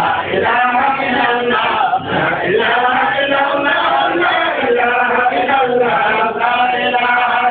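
Male voices chanting a melodic line, with long held notes and brief breaks for breath.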